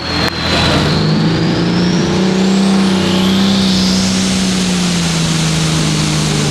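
Hot farm class pulling tractor's turbocharged diesel engine: a couple of quick throttle bursts, then from about a second in it holds a steady, loud full-throttle run under load, with a high turbo whistle rising over the second half.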